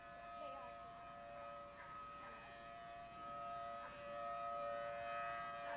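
Outdoor tornado warning siren sounding a steady tone in the distance, growing louder about four seconds in.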